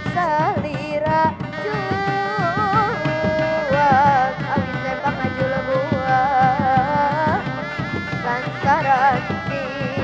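Live Sundanese folk ensemble music for Reog Dog Dog: an ornamented melody that bends and wavers in pitch over busy hand-drumming.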